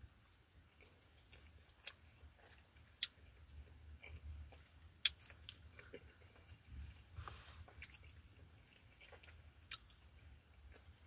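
Soft, quiet chewing of lobster mac and cheese, with a few scattered sharp clicks.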